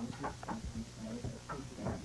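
A few light knocks and rustles of objects being handled, over a steady low hum.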